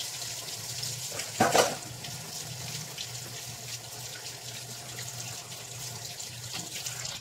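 Steady hiss of running water that starts and ends abruptly, with one brief louder clatter about a second and a half in.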